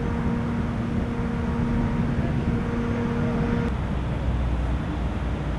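Steady outdoor background noise with a low steady hum. About two-thirds of the way in, the sound changes abruptly: the hum stops and a deeper low rumble takes over.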